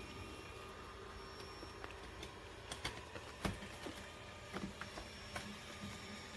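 Faint steady machine hum from a robot vacuum-mop at work, with a handful of scattered clicks and knocks, the loudest about halfway through.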